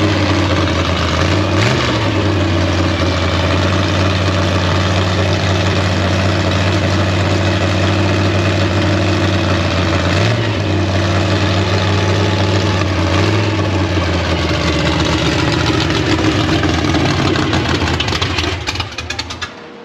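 1956 Chevy gasser's freshly rebuilt engine running through new headers on its first start. It idles, is blipped briefly three times, and dies away near the end. Its ignition timing has only been set roughly without a timing light, which the owner blames for a little backfire.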